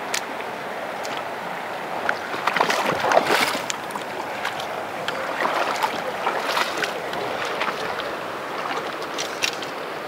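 Steady rush of a mountain river flowing over rocks, with scattered close scuffs and clicks, densest about three seconds in.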